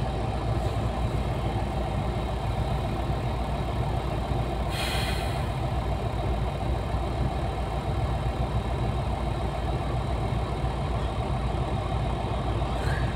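Diesel engine of a LiuGong 950E hydraulic excavator running steadily under load as it digs rock, with a short hiss about five seconds in.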